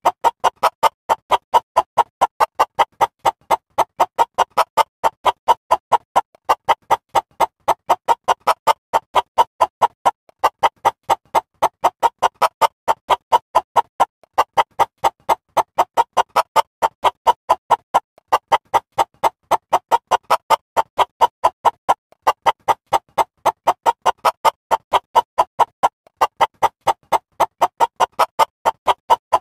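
Background music: an electronic keyboard playing short, evenly repeated notes, about four a second, with a brief pause every few seconds.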